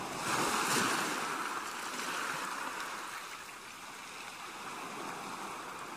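A large metal pot of soup at a hard rolling boil, giving a steady bubbling hiss that is a little louder in the first second or so.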